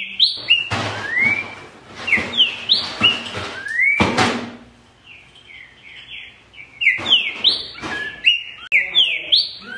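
Green-winged saltator (trinca-ferro) singing loud, clear slurred whistles in two quick phrases, the second starting about seven seconds in, with a brief noisy burst near the middle.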